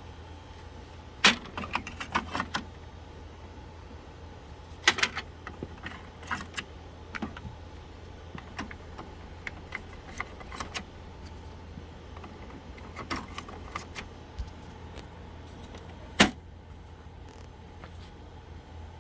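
Ink cartridges being handled and pushed into the HP OfficeJet Pro 8710's cartridge slots: scattered plastic clicks and short rattles, with sharp snaps about a second in, about five seconds in and about sixteen seconds in, over a low steady hum.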